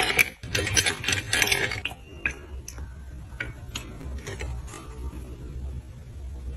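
Crackling and clicking of a pizza being cut with a pizza cutter wheel: a dense run of crisp crunches at first, then scattered lighter ticks.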